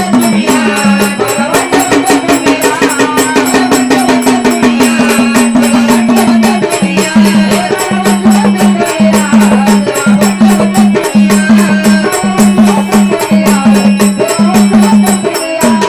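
Marathi folk music with fast, jingling percussion under a wavering melody. A low held note breaks into short repeated beats about seven seconds in.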